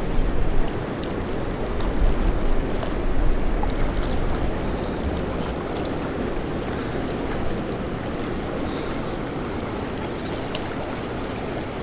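Steady rush of the fast-flowing river current below a dam, with wind gusting on the microphone in the first few seconds.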